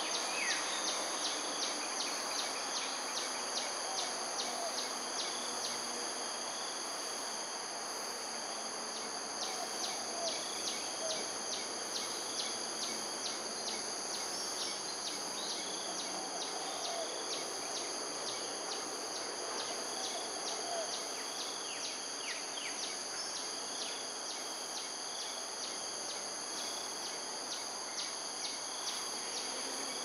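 Steady high-pitched insect chorus with a rapid pulsing chirp, typical of crickets, repeating several times a second; a few faint descending bird calls come in about two-thirds of the way through.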